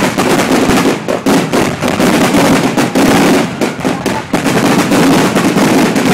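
Fireworks going off in rapid, continuous succession, the bangs and crackles overlapping with hardly a break.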